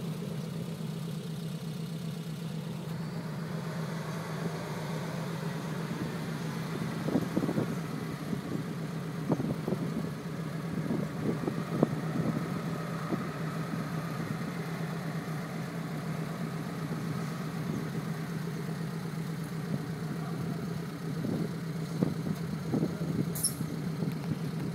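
Suzuki Sierra (Samurai) engine running steadily at low revs as the 4x4 crawls down a steep dirt slope in low range on 4.16 reduction gears. There are scattered knocks from the tyres and suspension over the rough ground, in clusters near the middle and again near the end.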